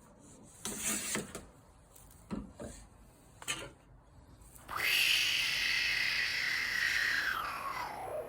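A few light taps, then, about five seconds in, one long rasping stroke of a hand plane shaving across wood. It lasts about three seconds and falls in pitch as it ends.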